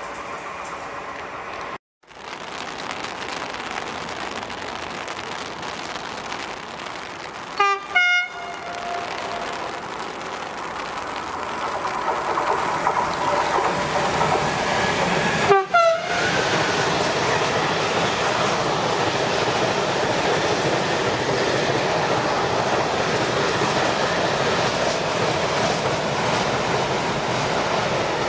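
An electric freight locomotive's horn sounds two short double blasts about eight seconds apart as it approaches. The steady running noise of a long container train then builds and stays loud as it passes at speed.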